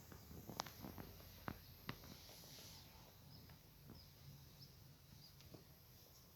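Near silence, with a few faint clicks and taps in the first two seconds and faint short high chirps later on.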